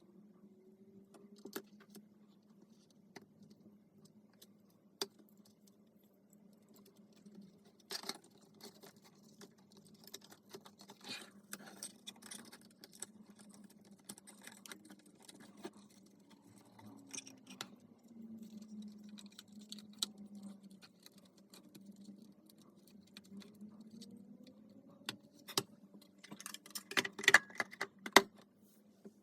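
A faint low hum whose pitch slowly wavers up and down, under scattered small clicks and light rattles. A quick run of louder clicks comes near the end.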